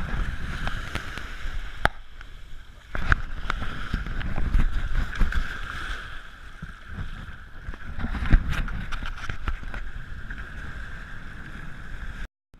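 Wind and shallow surf rumbling on an action camera's microphone, with a steady high hum throughout and scattered sharp knocks from handling.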